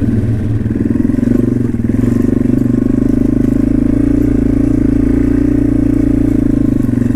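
2014 Yamaha TW200's single-cylinder four-stroke engine running steadily at low speed as the dirt bike climbs a grassy bank, with the fast even beat of its one cylinder.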